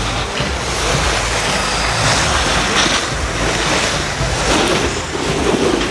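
Loud, steady rushing noise with a fluctuating low rumble: wind buffeting the microphone, swelling briefly every second or so.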